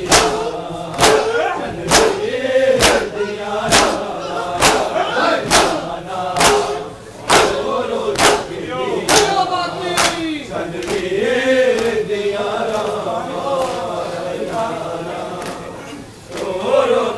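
A crowd of men chanting a noha together while beating their chests in unison (matam), the sharp slaps landing about once a second. After about ten seconds the slaps thin out while the chanting goes on.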